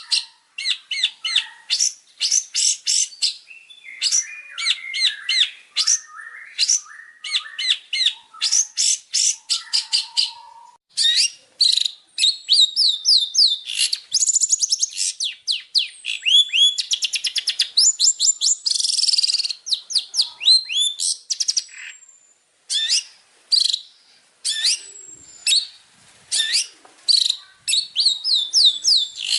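Songbird song played as masteran tutor song for training a long-tailed shrike (cendet): rapid runs of sharp high chirps and fast trills, broken by short pauses, with a brief gap about three-quarters of the way through.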